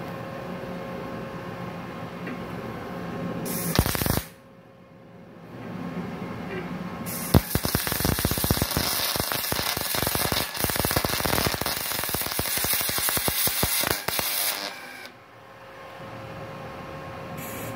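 MIG welding arc crackling and sizzling steadily for about seven seconds, from the MultiPro MIG-MMA/TIG 160 inverter welder running solid wire under argon shielding gas at about 100 A and 9 V on thick plate. A short burst comes about four seconds in, before the main weld.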